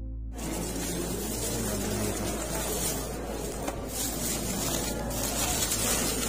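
Rustling and handling noise from bags and objects being pressed onto the stone, over a low hubbub of people close by, with a couple of light knocks.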